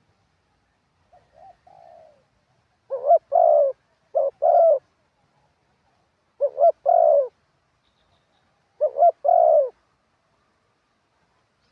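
Spotted dove cooing: a faint coo about a second in, then four loud two-part coos at intervals of two to three seconds.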